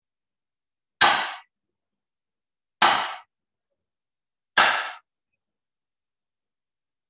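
Three sharp strikes of a bamboo stick, evenly spaced about two seconds apart, each ringing briefly before dying away.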